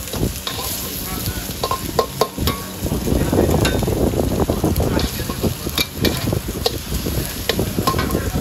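Food sizzling as it is stir-fried in a wok, with a metal spatula repeatedly clicking and scraping against the pan and a few short metallic rings. It gets somewhat louder about three seconds in.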